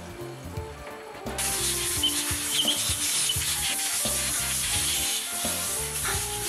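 Compressed-air blowgun hissing steadily as fuel-valve parts are blown clean after washing in gas oil, starting about a second and a half in.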